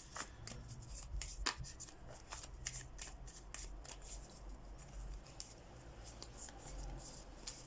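A deck of playing cards shuffled by hand for a fortune-telling spread: a run of quick, irregular, crisp card clicks.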